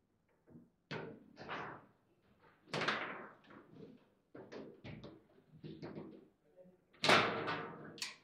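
Foosball table in play: a string of sharp knocks and clacks as the ball and rod bumpers strike the table walls and figures. The loudest hit comes about seven seconds in, with a sharp crack a second later.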